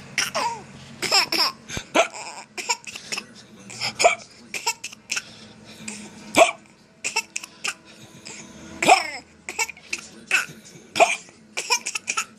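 Hiccuping laughter: a run of short, sudden laughs, each caught like a hiccup, coming irregularly about two a second.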